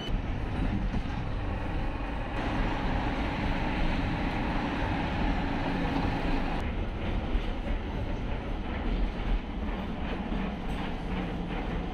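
Electric trams running on rails: a steady rumble and rolling noise from a tram passing close by. A bit past halfway the sound changes abruptly to the ride heard from inside a moving tram.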